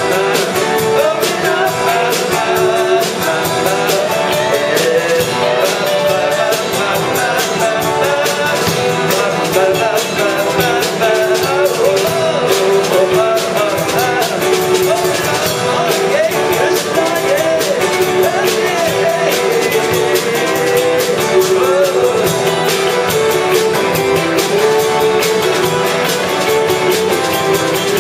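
Live band music with guitar, keyboard and drums keeping a steady beat, and a melody line that bends up and down over it.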